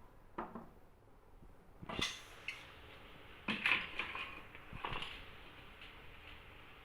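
Sharp clicks and knocks of small hard cage parts being handled and fitted together during bird-cage assembly. About half a dozen taps come at irregular intervals, the loudest cluster falling just past the middle.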